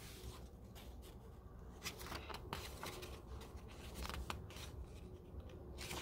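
Faint rustling and light crinkles of a hardcover picture book's paper page being turned by hand, in a series of short, crisp scrapes.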